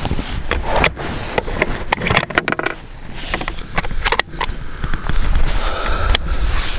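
Handling noise from a rifle and shooting gear: a string of clicks, knocks and scrapes over a low wind rumble on the microphone.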